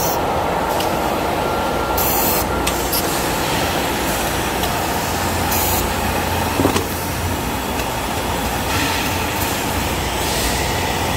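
Steady rumble and hiss of workshop machinery and compressed air around a pneumatic vacuum glass lifter, with a single short knock about two-thirds of the way through.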